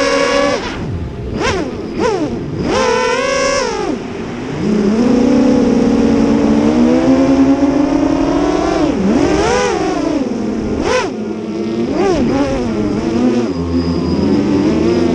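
Motors and props of a 9-inch 8S FPV quadcopter (Brotherhobby 2812 900kv motors, HQ 8x5 props) whining, the pitch sweeping up and down with the throttle, with several quick chops and punches. Near the end it settles to a lower, steadier hum.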